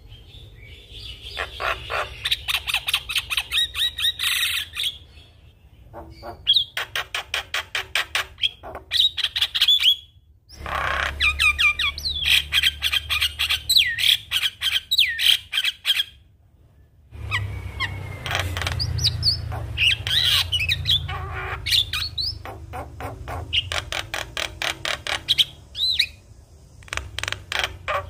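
Javan myna in full song: rapid trains of sharp chattering notes mixed with short whistles, in bursts separated by a few brief pauses.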